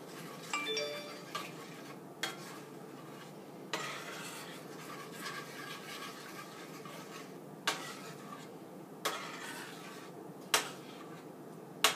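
Chocolate gravy being stirred in a stainless steel skillet: a steady scraping of the utensil through the thickening gravy, broken by about eight sharp clinks of the utensil against the pan.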